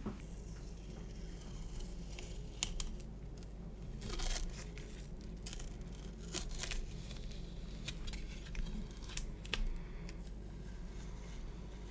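Masking tape being peeled off a painted plastic model-kit wing: soft tearing and crinkling now and then, the largest about four seconds in, with a few small clicks from the plastic part being handled.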